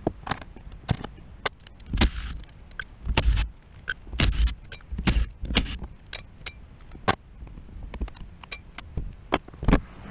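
Irregular clicks, knocks and light clatter of tools and metal parts being handled, with a few duller thumps.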